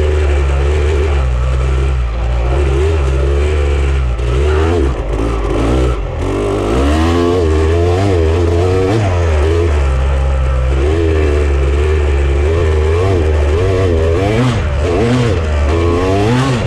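Off-road vehicle engine running under load, its pitch rising and falling repeatedly as the throttle comes on and off, with some rattling from the vehicle over rough ground.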